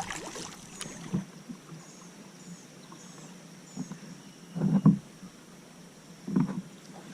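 Kayak on a creek: a few short paddle splashes and knocks on the hull, the loudest a little before five seconds in, over a faint steady high hiss.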